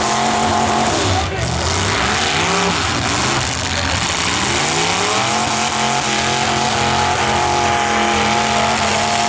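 Engines of several full-size derby cars running hard and revving, their pitches rising and falling over one another over a constant din of noise.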